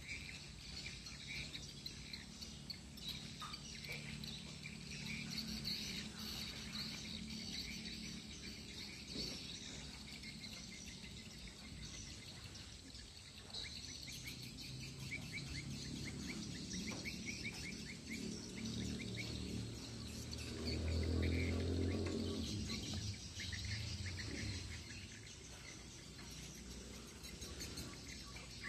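Birds chirping and insects trilling steadily in the background, with a low rumble that swells and fades, loudest about two-thirds of the way through.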